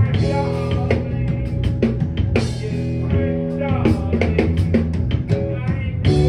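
A live rock band playing, with drums and guitar.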